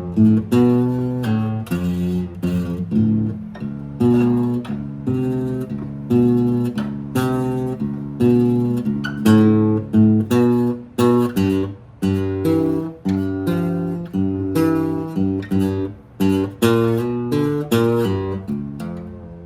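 Acoustic guitar music: plucked and strummed chords, each note starting sharply and fading, in a steady flow.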